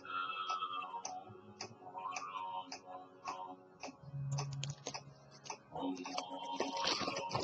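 Light, regular ticking over soft background music, growing busier near the end.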